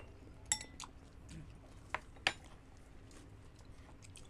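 Metal spoon clinking against tableware: a few sharp, ringing clinks in the first two and a half seconds, over a faint steady hum.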